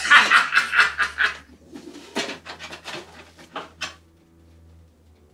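A man's loud laugh, then shorter bursts of laughter that die away about four seconds in.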